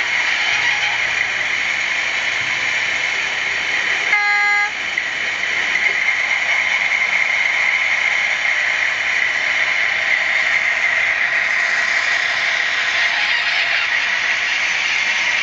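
Sound decoder in a Piko DF7C model diesel locomotive playing a running diesel engine through its small speaker, with one short horn toot about four seconds in.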